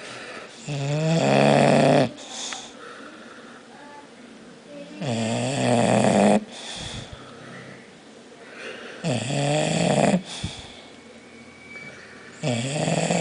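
A bulldog snoring: four loud snores about every four seconds, with quieter breaths between them.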